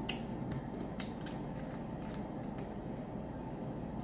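Steamed shellfish shells being cracked and picked apart by hand: a scatter of short crisp clicks and snaps over a steady low background hum.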